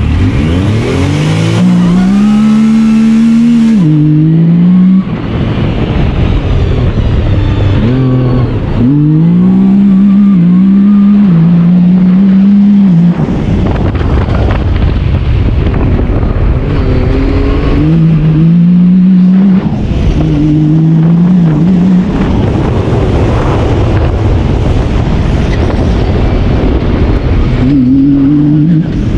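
Yamaha YXZ1000R side-by-side's three-cylinder engine accelerating in four hard bursts, its pitch climbing and then stepping down at each gear change. Between the bursts there is a rough, noisy rush.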